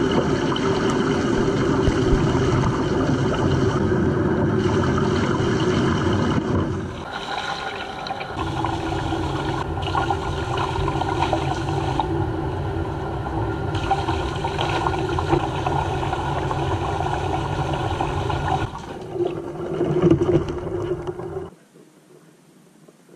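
Water running steadily from a bathtub faucet into the tub, with some splashing around a wet dog; the water is shut off suddenly near the end.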